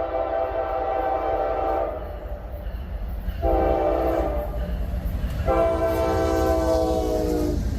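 Freight locomotive's multi-chime air horn: a long blast that ends about two seconds in, a short one, then another long one, the close of the grade-crossing signal. A steady low rumble of the passing train runs underneath.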